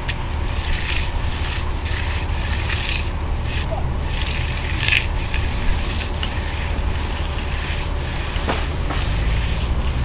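Irregular gritty scraping and rubbing in short bursts, over a steady low rumble.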